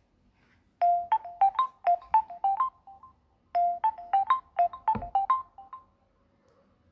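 Nokia Lumia 520 ringtone: a short melody of quick, bright, struck notes, played twice with a brief pause between.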